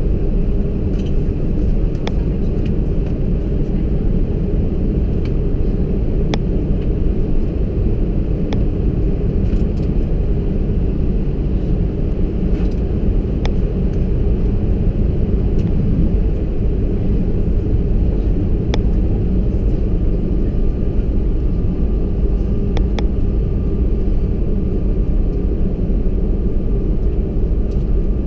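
Airbus A320 cabin noise after landing: a steady low rumble from the idling engines as the airliner taxis, with occasional sharp clicks and rattles. A faint steady tone joins about two-thirds of the way through.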